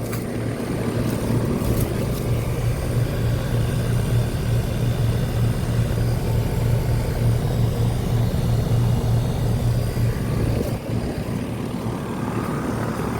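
Outdoor central air conditioner condenser units running: a steady deep compressor hum under the whoosh of the condenser fan. The deep hum eases somewhat near the end.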